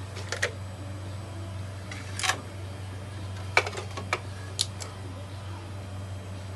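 Coffee maker brewing: a steady low hum with a scattering of short, sharp clicks and knocks, bunched mostly in the middle.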